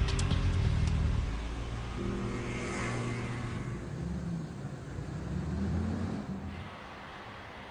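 Car engine running and accelerating, its pitch swelling up and down, with a brief rush of passing noise in the middle. It fades down about six and a half seconds in.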